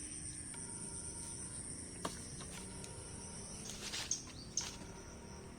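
Insects trilling steadily at a high pitch. From a little under four seconds in, short sharp chirps repeat about twice a second.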